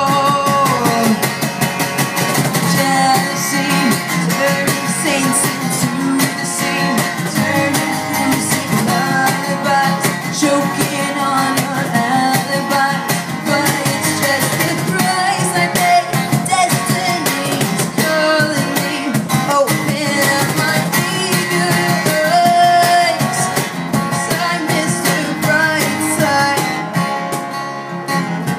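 Live acoustic band music: a steadily strummed acoustic guitar with a woman singing into a microphone over a regular percussion beat.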